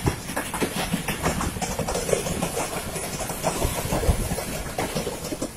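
Passenger train coaches running on the rails, wheels clattering in a steady stream of clicks over the rail joints, heard from an open coach window while another train passes on the next track.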